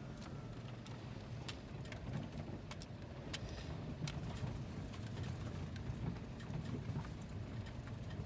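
Car driving along a road, heard from inside: a steady low engine and road rumble with scattered clicks and knocks.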